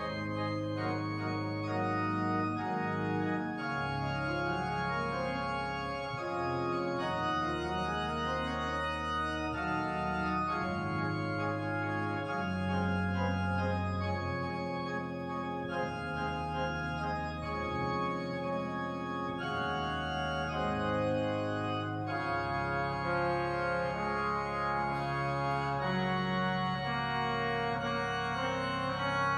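Church organ playing slow, held chords over deep pedal bass notes, the chords changing every second or two.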